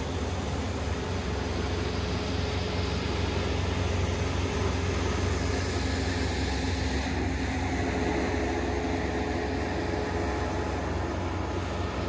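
Kubota ER470 combine harvester running steadily while harvesting rice: its diesel engine and cutting and threshing machinery make an even, continuous drone with a strong low hum.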